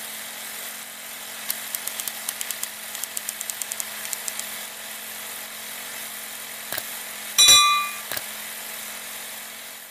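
Old film projector sound effect: a steady hum and hiss with a run of quick clicks, and a loud ringing hit about seven and a half seconds in.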